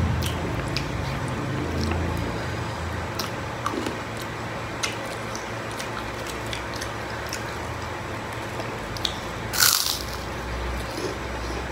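Close-up eating sounds: hands picking at food with small clicks and smacks of chewing, then one loud crunch about ten seconds in as a crispy fried cracker is bitten.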